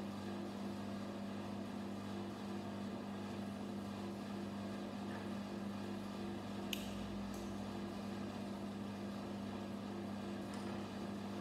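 Steady low electrical hum from room equipment. A few faint clicks come through, about two-thirds of the way in and again near the end, as small plastic Lego pieces are handled and fitted together.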